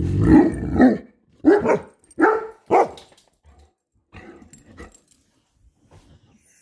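Great Dane and poodle barking at something outside the window: a long, rough bark in the first second, three sharp barks in quick succession, then a few fainter ones about four to five seconds in.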